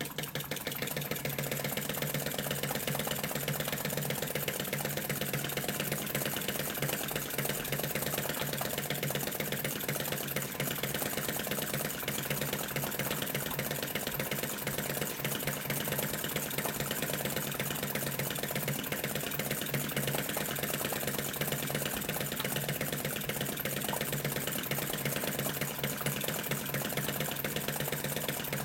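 Model flame-eater (vacuum) engine, built as a Lanz Bulldog tractor, running fast with a rapid, even clatter while it drives a belt-driven model Stuart oil field pump and generator.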